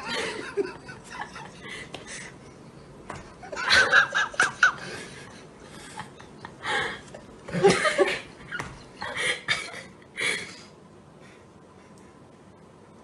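Human laughter in several short bursts with quiet stretches between, loudest about four and eight seconds in.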